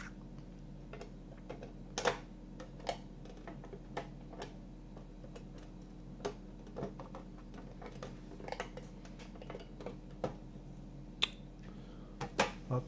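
Irregular light clicks and taps of hard plastic model-kit parts, a smoked plastic roof glass panel being handled and pressed against the model car's plastic body, about a dozen in all. A faint steady low hum runs underneath.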